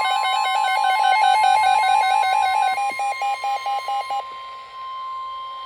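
The steady 1050 Hz NOAA Weather Radio warning alarm tone, the signal that a weather warning is about to be read. A fast pulsing electronic alarm beep sounds over it and stops about four seconds in, leaving the plain tone.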